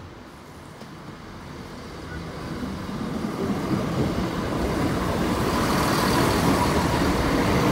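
Class 170 Turbostar diesel multiple unit approaching and passing close by, its engine and wheels on the rails growing steadily louder from about a second in and staying loud near the end.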